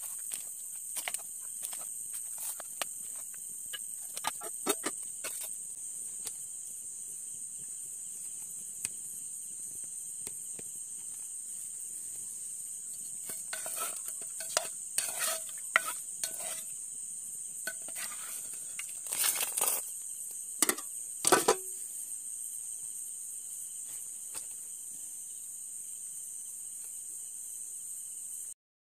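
Crickets trilling steadily at a high pitch, with scattered clinks and scrapes of a ladle against steel pots and plates as rice and fish curry are served, busiest in two clusters around the middle.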